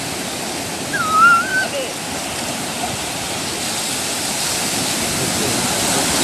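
Ocean surf breaking on a beach as a steady rush of noise, with a brief high wavering tone about a second in.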